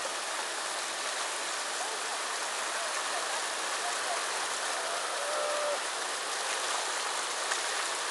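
River rapids: whitewater rushing over and around boulders, a steady, unbroken rush of water.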